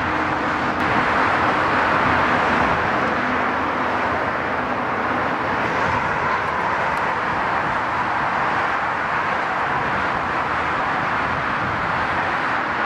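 Steady, loud rushing noise of car traffic on a nearby federal road, with a faint low engine hum beneath it for the first few seconds.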